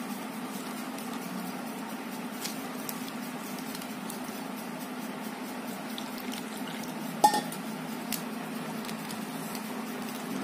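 A hand squishes and mixes gram-flour batter in a steel bowl as water is poured in from a steel tumbler, with faint scattered clicks. A single sharp metal clink rings out about seven seconds in, and a steady low hum runs underneath.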